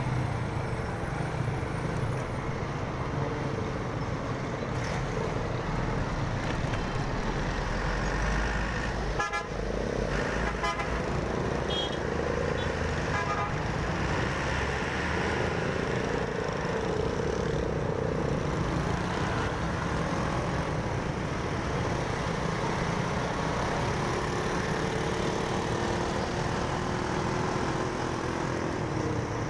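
A motorcycle riding through city traffic: its engine running under steady road noise, with other vehicles' horns beeping a few times around the middle.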